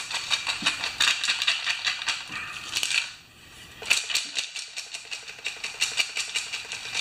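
Rapid clicking and clattering of a Pioneer Partner 500 chainsaw being shaken by hand to work solvent around its fuel tank. The rattling breaks off for about a second a little past the middle, then starts again.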